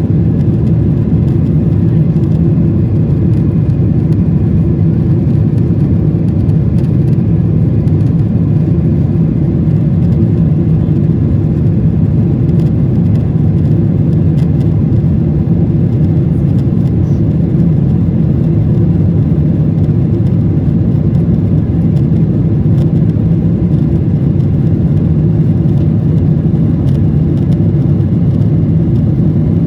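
Airplane engines running with a steady low drone that does not change.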